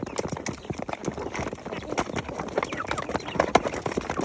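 Chickens pecking at grass-pellet feed: many rapid, irregular taps of beaks on the feed and the surface beneath it.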